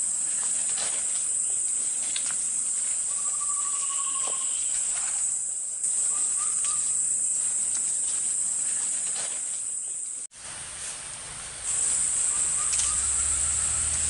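Steady high-pitched drone of forest insects, with a few short, low bird trills from babblers (tepus) calling in the undergrowth. The sound cuts out briefly about ten seconds in, then resumes.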